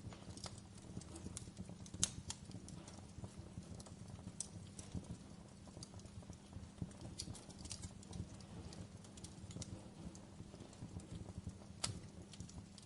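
Wood campfire crackling, with irregular sharp pops and snaps over a low steady rumble of the flames, and two louder pops, one about two seconds in and one near the end.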